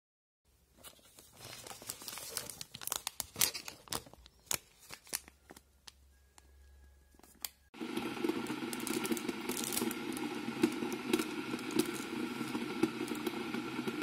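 Crinkling and sharp clicks of cardboard and foil-wrapped chocolates being handled at an advent calendar. About eight seconds in, an Electrolux electric kettle heating water sets in with a steady rushing hum, while a paper tea-bag sachet is torn open and crinkled.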